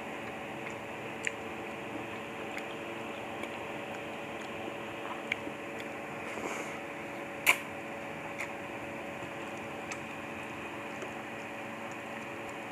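Eating lomi noodle soup with a spoon: scattered soft slurps and small clicks of the spoon, the sharpest click about seven and a half seconds in, over a steady background hum.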